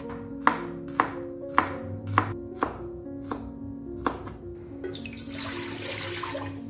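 Knife chopping chillies and shallots on a plastic cutting board, single sharp strokes about one to two a second, then water pouring from a plastic container into a stainless steel pot from about five seconds in.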